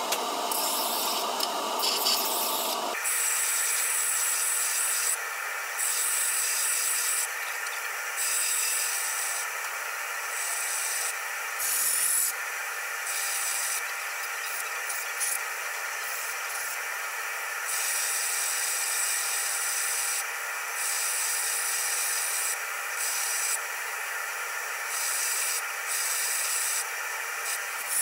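Bench combination belt and disc sander running with a steady motor whine, while a steel hammer drift is pressed against the abrasive in short passes. Each pass is a grinding hiss that starts and stops every second or two, with a coarser, fuller grind in the first few seconds.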